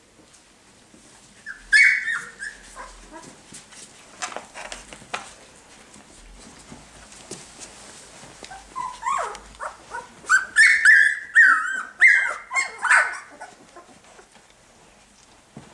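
Young puppies squealing and yelping in short, high-pitched cries: a brief burst about two seconds in, then a quick run of loud yelps from about ten to thirteen seconds in, with softer whimpers between.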